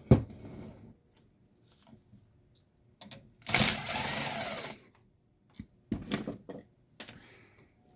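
A power driver whirs for about a second and a half, backing out a screw, framed by a sharp knock at the start and light clicks and clatter of parts being handled.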